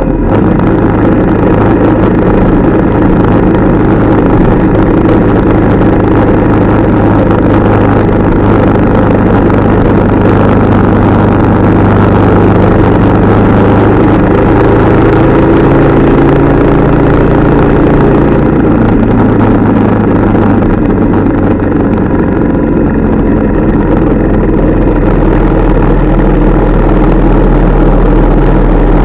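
Motorcycle engine running steadily under way, with road and wind noise, heard from a camera mounted low by the front wheel.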